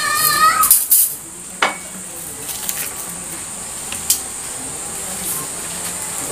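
A few sharp metallic clicks and clinks, one loud click about a second and a half in and another a few seconds later, from bonsai wire and tools being handled while branches are wired.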